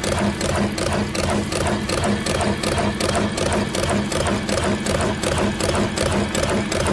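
Electric cigarette-rolling machine running: a fast, even mechanical clatter, several clicks a second, over a steady motor hum.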